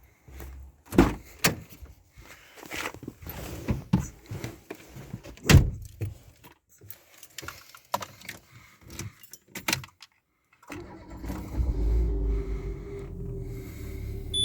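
Keys jangling and sharp clicks and knocks, like a door opening and closing, for about ten seconds. Then, after a brief gap, a car engine is running with a steady low hum.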